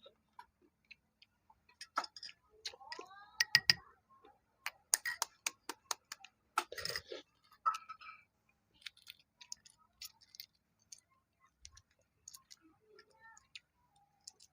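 Balut eggshells being tapped, cracked and peeled by hand: a run of sharp clicks and cracks, thickest between about two and eight seconds in, then sparser.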